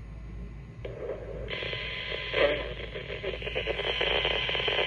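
Static hiss from a small handheld radio's speaker. It starts about a second in and grows louder soon after.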